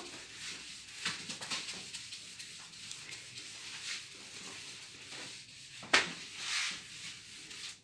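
Handwriting: irregular faint scratchy strokes of writing, with a sharp click about six seconds in and a short rustle just after it.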